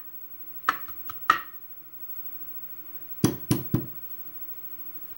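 Small metal lock parts and tweezers clicking and tapping against a brass lock cylinder and a wooden pin tray: a few light clicks about a second in, then three sharp knocks in quick succession near the end.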